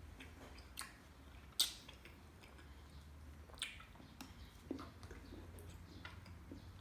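A person chewing and biting chocolate close to the microphone, with a few sharp wet mouth clicks, the loudest about one and a half seconds in.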